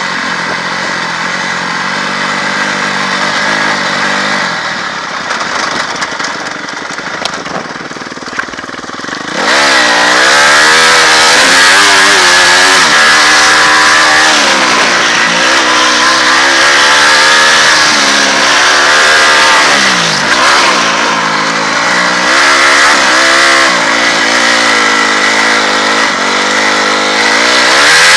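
Full race spec Honda CRF250R's single-cylinder four-stroke engine heard on board: softer and lower for the first nine seconds or so, then opening up suddenly and running hard, its pitch rising and falling again and again as it revs up and drops through gear changes.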